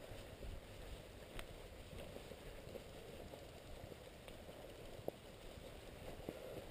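A mountain bike moving along a dirt track, heard through a helmet-mounted camera: a low, steady rumble with a few sharp clicks and rattles.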